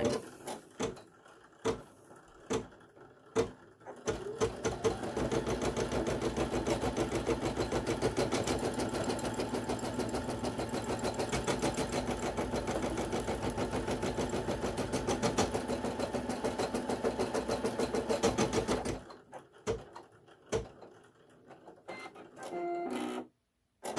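Brother PE800 embroidery machine stitching a border on felt: a fast, steady rattle of needle strokes starts about four seconds in and stops abruptly about five seconds before the end, with a few clicks before and after.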